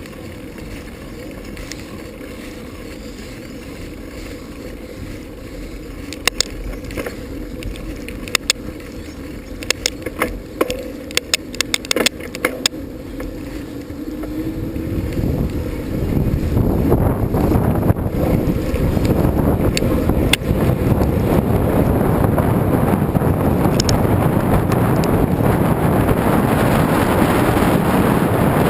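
Bicycle riding on knobby tyres: rolling noise with scattered sharp clicks and rattles in the first half, then loud wind buffeting on the microphone building from about halfway as the bike picks up speed.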